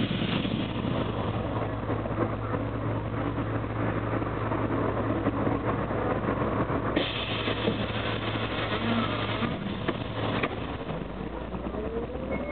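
Karosa B741 articulated city bus's diesel engine idling steadily while the bus stands. About ten seconds in it pulls away, with a rising whine as it accelerates.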